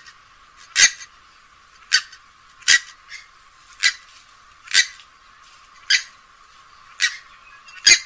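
Grey-headed swamphen calling: a steady run of short, loud calls, about one a second.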